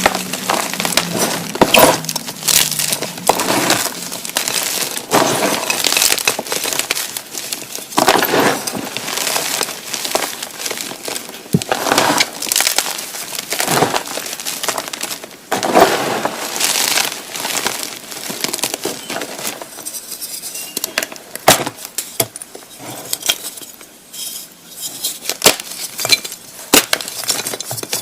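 Gymnastic chalk blocks being crushed and crumbled by hand: a run of gritty crunches with sharp crackles and small snapping clicks, coming in waves every second or two, thinning out for a few seconds near the end.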